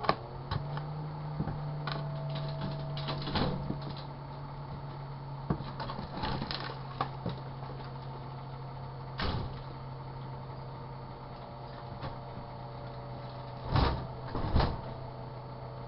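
Microwave oven running with a steady low hum that starts just after the beginning. Scattered sharp clicks and knocks sound over it, with two louder knocks near the end.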